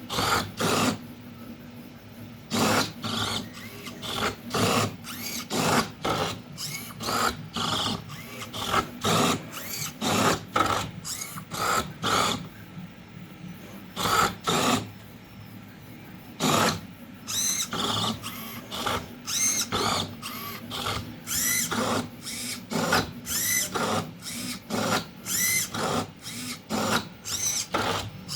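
Servo motors of a 3D-printed Rubik's cube solving robot whirring in short bursts, roughly one or two a second, with a few pauses of a second or two, as its grippers grip and turn the cube's faces.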